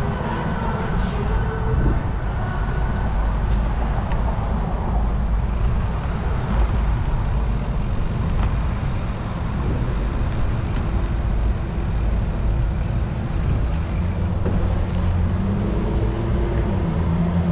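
Steady rush of wind and tyre noise from riding a mountain bike over city pavement, with road traffic around; a low steady hum joins near the end.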